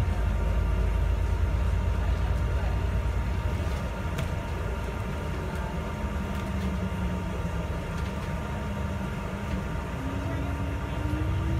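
Bus engine running with road rumble, heard from inside the cabin while driving. The engine note climbs near the end, then drops.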